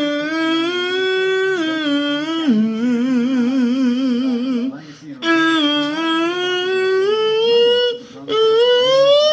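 A voice humming a wordless tune in long held notes, in three phrases. The notes dip lower with a strong wavering vibrato before the first break, and climb in pitch near the end.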